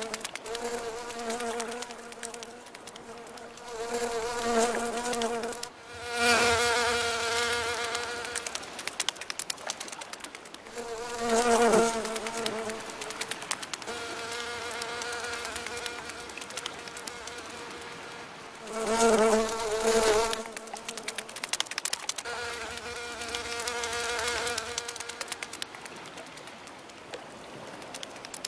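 Stylised cartoon fly buzzing in flight: a wavering, pitched hum that swells and fades several times as it comes close and moves off, loudest about six, twelve and twenty seconds in.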